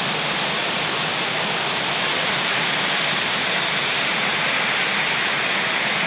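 Heavy rain falling steadily in a storm, an even hiss that holds constant throughout.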